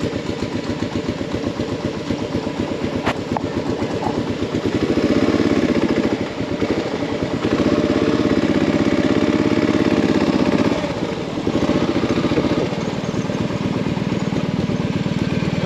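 Motorcycle engine idling with a fast, even beat, growing louder for a few seconds in the middle before settling again.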